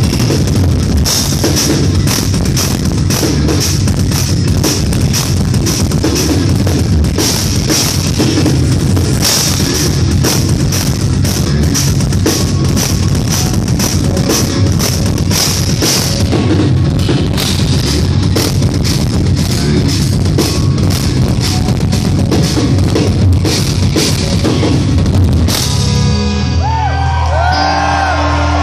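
Live instrumental progressive metal band: a drum kit playing fast and dense with bass drum and snare under extended-range eight-string guitars. About 25 seconds in the drums stop and the guitars ring on alone with held, bending notes.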